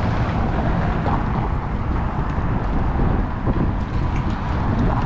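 Wind buffeting the microphone, an uneven low rumble, over the steady noise of street traffic.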